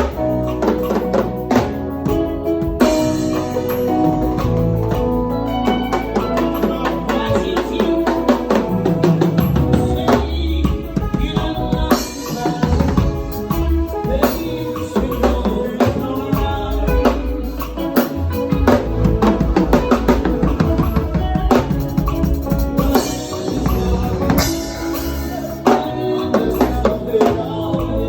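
A drum kit played along with a music track, with busy runs of drum strikes over a heavy bass line.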